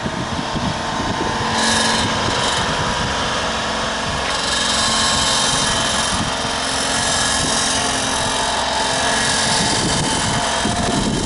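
Honda Acty mini truck's 660 cc three-cylinder engine running steadily, with a continuous mechanical whine.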